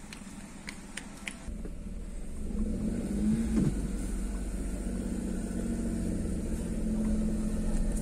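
Car engine and road rumble heard from inside the cabin. A low rumble comes in about a second and a half in and grows louder as the car pulls away, with a steady engine hum on top. A few faint clicks come near the start.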